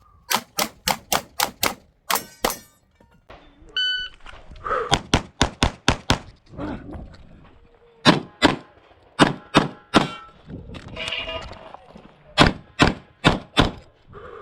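Rapid pistol fire from a compensated 9mm Glock 45, shots coming in quick strings of pairs and longer runs with short gaps between strings. A brief ringing tone sounds about eleven seconds in.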